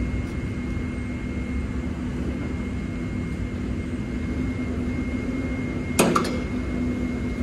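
A roll-over grain-trailer sheet being wound up with a long hand crank, over a steady low hum, with a sharp clack about six seconds in.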